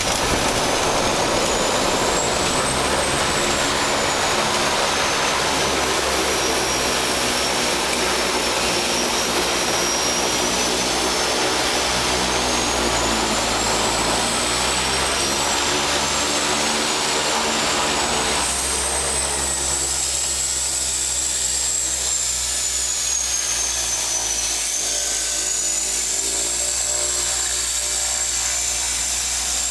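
DHC-6 Twin Otter seaplane's twin turboprop engines heard from inside the cockpit on a landing approach: a loud, steady drone with a high turbine whine that wavers up and down in pitch. About two-thirds of the way through the rushing noise drops and the sound turns lower.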